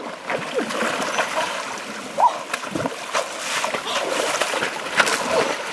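Water splashing and sloshing as someone wades and steps through a shallow, rocky stream, with many sharp splashes over the running water. A few brief pitched, voice-like sounds come over it.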